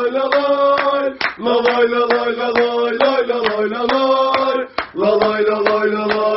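Football supporters' chant: a group of men singing a wordless melody in long held phrases, with short breaks about a second in and near the end, over a steady beat of sharp hits.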